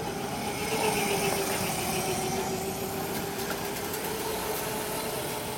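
Small electric scooter's motor whining steadily, its pitch sagging slightly.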